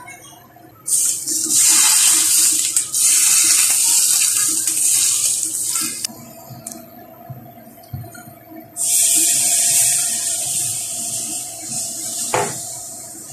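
Hot oil sizzling loudly as it is poured from a saucepan onto steamed fish topped with ginger and spring onion. It sizzles twice, each time for several seconds.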